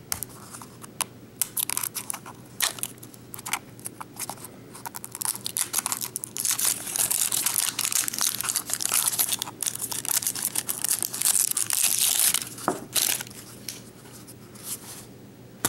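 Plastic wrapping on a Mash'ems toy capsule being torn open and crinkled by hand. Scattered clicks and rustles come first. About six seconds in there are several seconds of continuous tearing and crinkling, then lighter handling noises near the end.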